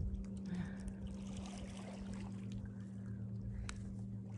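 A steady, low, engine-like hum, with a few faint small clicks as a freshly caught black bass is unhooked by hand.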